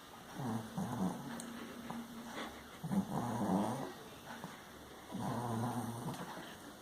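A sleeping pet snoring: three slow, rasping snores, each about a second long, coming roughly every two seconds.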